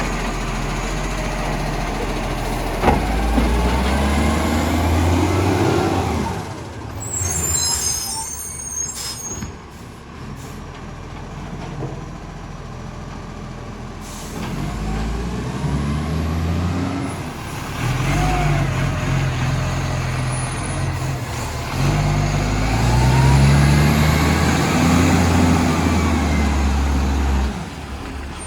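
Rubbish truck's diesel engine, which has an exhaust leak, revving up and down several times. A sharp knock comes about three seconds in, and a short burst of air hiss about seven seconds in.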